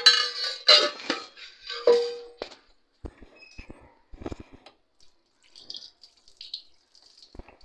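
Steel kitchen utensils clinking and clattering against metal vessels: a few ringing metallic strikes in the first two and a half seconds, then lighter knocks and handling noise.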